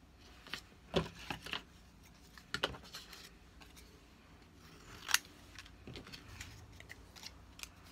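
Scattered light clicks, taps and paper rustles from sticker strips, paper tags and small craft tools handled on a cutting mat, the sharpest about a second in and about five seconds in.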